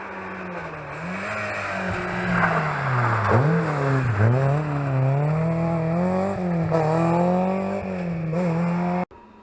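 Historic rally car's engine at full effort, growing louder as it approaches, its revs rising and falling again and again with two sharp dips about three and four seconds in. The sound cuts off suddenly near the end.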